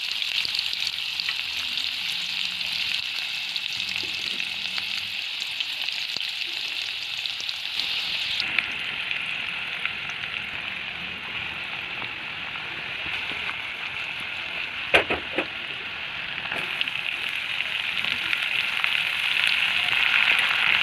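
Bitter gourd frying in hot oil in a pan, a steady sizzle that grows louder toward the end. A few sharp knocks come about fifteen seconds in.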